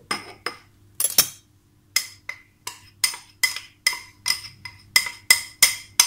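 Metal spoon tapping against a drinking glass to knock spelt flour out into a glass jar: a run of short ringing glass clinks, a few at first and then about three a second from about two seconds in.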